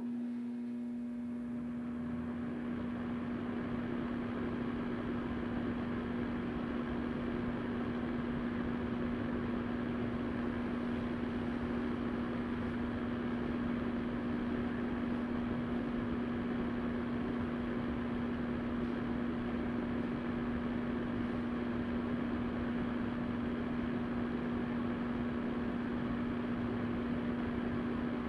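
Vornado VMH300-KR electric fan heater running, its fan blowing a steady rush of air under a constant motor hum. It grows slightly louder over the first couple of seconds, then holds steady.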